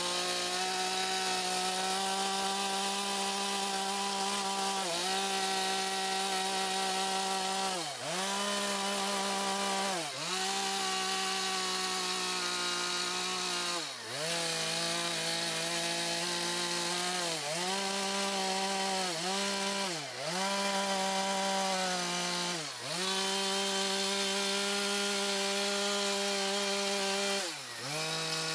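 Stihl two-stroke chainsaw running at high revs while carving into a pine log. Its engine note dips briefly and recovers about nine times, every few seconds.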